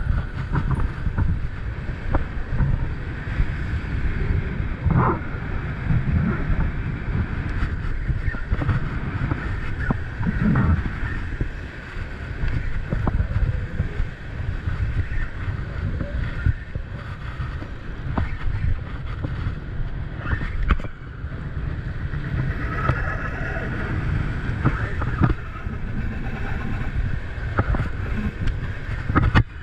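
Strong wind buffeting the microphone in a low, uneven rumble, over the wash of waves.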